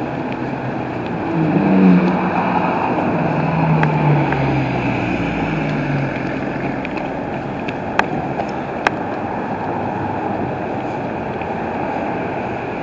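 Fire and rescue boat's engines running as it speeds across the river: a low hum that fades out about halfway, over a steady rush of wind and water. Two sharp clicks come a little later, under a second apart.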